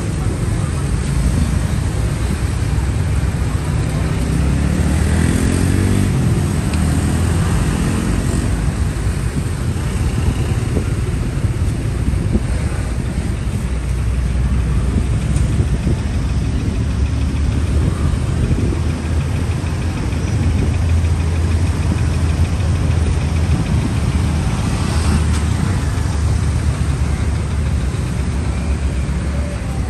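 Street traffic: motor vehicle engines running close by, with one revving up a few seconds in.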